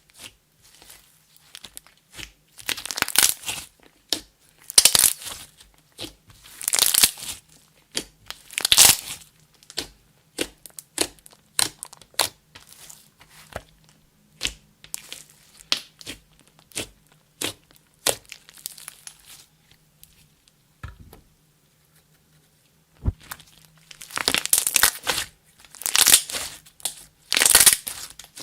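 Hands squeezing and folding clear slime with makeup and glitter mixed in, making crackling, popping squelches. They come in surges about every two seconds, thin out to scattered small clicks in the middle, pause briefly, then come in surges again near the end.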